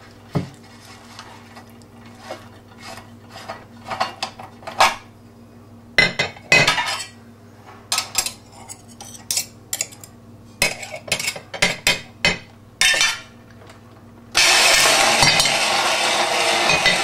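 Metal parts of a Tasin electric meat grinder's head clicking and clinking as they are handled and taken apart over a ceramic bowl while the motor is off. About fourteen seconds in, the grinder motor starts and runs steadily and loudly.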